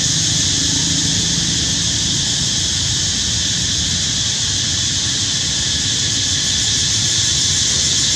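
Steady high-pitched hiss with a low rumble underneath, unchanging throughout and with no distinct sounds: outdoor background noise.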